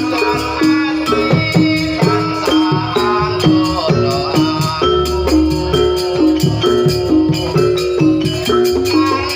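Jaranan pegon music, East Javanese horse-dance music, with a steady percussion beat over held melodic lines and heavy bass.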